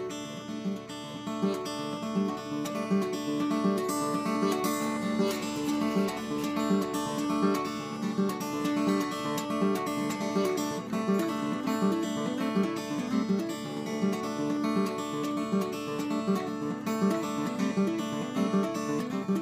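Solo cutaway acoustic guitar played fingerstyle: an instrumental tune of picked notes in a steady, repeating pattern.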